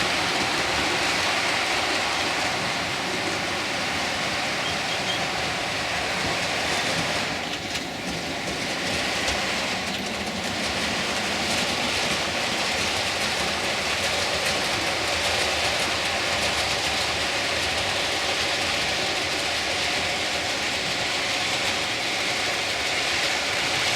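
Model Duchess class locomotive hauling six coaches round the layout: a steady running clatter of wheels on the track, dipping briefly a third of the way in.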